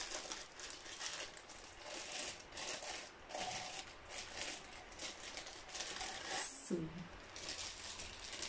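Plastic packaging crinkling and rustling in quick irregular bursts as a wrapped ceramic mini wax warmer is pulled out and unwrapped, with a louder crackle about two-thirds of the way through.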